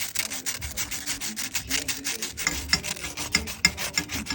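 Sandpaper rubbed over a gas furnace's flame sensor rod in quick, rhythmic back-and-forth strokes, several a second, scouring off the buildup that keeps the sensor from reading the flame.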